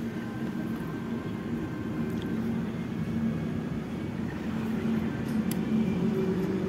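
Steady low engine hum, growing slowly louder.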